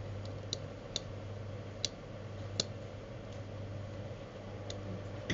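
Steady low hum at an electronics workbench, with six scattered, sharp clicks at uneven intervals.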